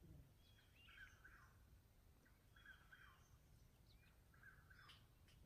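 Eastern whip-poor-will singing faintly, its call of a few slurred whistled notes repeated three times about every two seconds.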